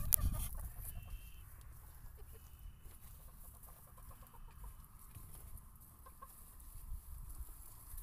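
Öland dwarf chickens clucking softly while foraging, with a short knock right at the start as something is set down.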